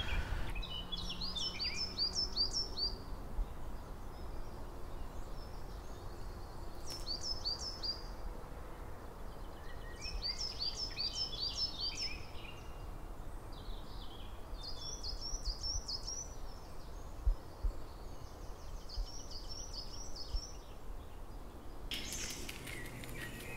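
Woodland birds singing: short phrases of quickly repeated high notes every few seconds, over a low steady rumble of outdoor background noise. Near the end, footsteps on a gravel path.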